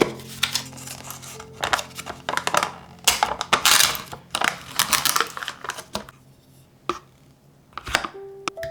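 Irregular kitchen handling sounds: a run of short scrapes and clatters, busiest in the first six seconds, with two more near the end, over faint soft music.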